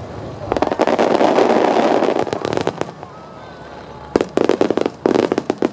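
Starmine fireworks bursting: a dense barrage of crackling shell bursts for about two seconds, then two quick volleys of sharp reports near the end.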